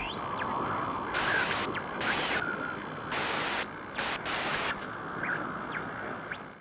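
Glitchy static sound effect of an animated logo intro: a steady hiss with louder bursts of static that switch on and off several times, and faint pitch sweeps running through it.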